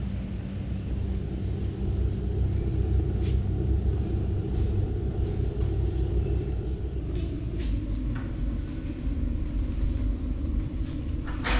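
A steady low rumble, with a few short sharp clicks about three, seven and eleven seconds in.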